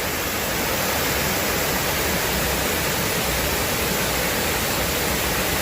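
Steady rushing of flowing water, an even unbroken roar.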